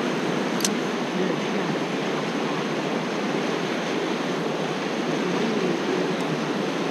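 Shallow river rapids rushing steadily around a wading angler, with one short click about half a second in.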